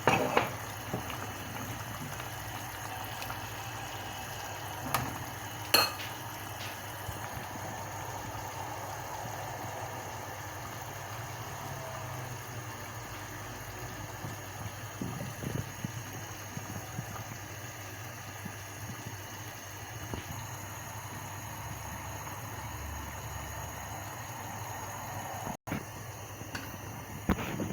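A pot of food bubbling steadily on the stove, with a couple of sharp clicks in the first six seconds.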